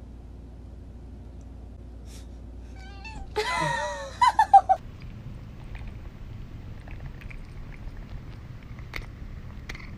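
Domestic cat meowing: a drawn-out, wavering yowl about three and a half seconds in, followed at once by four short, loud meows in quick succession, each falling in pitch.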